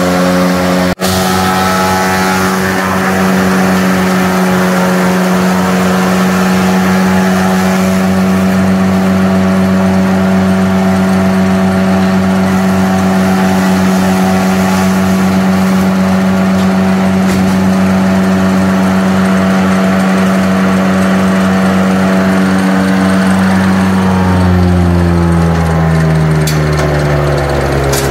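John Deere 3350 tractor's diesel engine running steadily at high revs, driving a forage chopper through the PTO while green stalks are fed in. About 24 seconds in the engine is throttled down and the pitch falls steadily.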